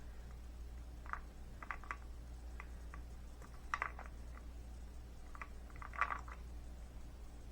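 Small round quartz-glass beads clicking against each other and onto a hard surface as they are slid off a bead strand: irregular light clicks, a few in quick clusters.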